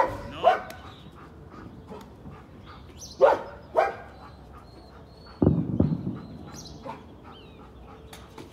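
A dog barking in short, high barks: a pair at the start and another pair about three seconds in, then a lower, longer bark just past the middle.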